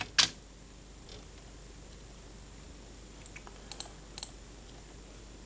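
Computer keyboard keys clicking: one sharp, loud click just after the start, then a few faint scattered key clicks, over quiet room hiss.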